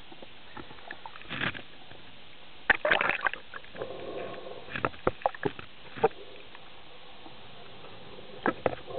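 Underwater sound heard through a diving camera's housing: a steady hiss with several bursts of crackling and gurgling, typical of a scuba diver's exhaled bubbles. The largest burst comes about three seconds in.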